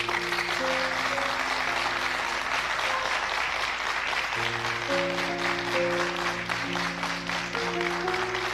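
An audience applauding, a dense steady clapping that starts just before and carries on throughout, with soft background music of held chords underneath.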